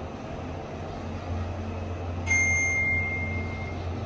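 Otis Gen2 lift car travelling up the shaft with a steady low hum. About two seconds in, a single electronic arrival chime sounds and fades over about a second and a half as the car reaches the floor.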